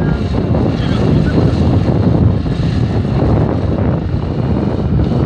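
Motorcycle engines running at the drag strip start line: a steady low rumble that holds without revving up or down.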